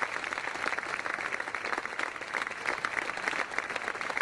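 Audience applauding: many hands clapping steadily at the end of a speech.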